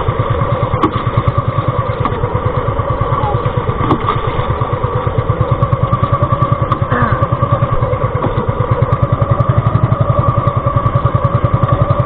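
Pumpboat engine running steadily under way, an even rapid chugging with a steady whine over it.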